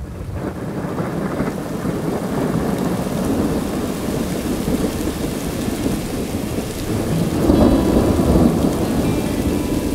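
Steady heavy rain with thunder rumbling, the thunder swelling loudest about three quarters of the way through.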